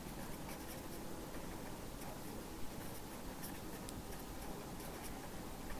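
Marker pen writing on paper: a faint, steady scratching of the tip with a few small ticks as letters are formed.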